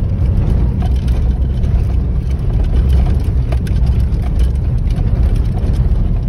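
Inside a car driving on an unpaved dirt track: a loud, steady low rumble of engine and tyres, with scattered small rattles and knocks from the cabin.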